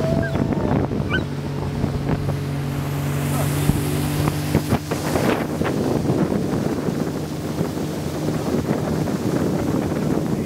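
Motorboat underway: a steady engine drone under rushing, splashing water along the hull, with wind buffeting the microphone.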